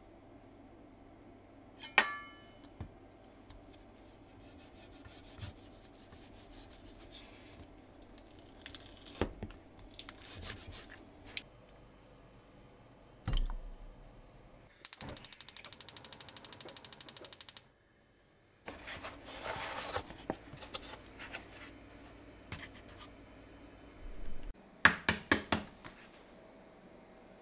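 Kitchen baking-prep sounds. It opens with a single ringing clink, then rustling and a dull thud, and a few seconds of a steady, rapidly pulsing machine noise that stops abruptly. Near the end come several sharp taps of eggs being cracked for their yolks.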